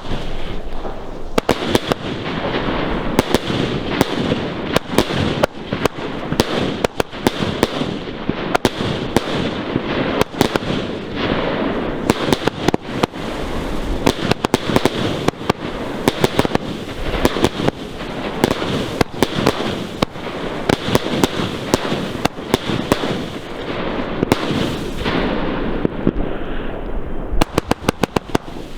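Fireworks going off without pause: a dense din of overlapping bangs and crackling, ending with a fast run of sharp cracks.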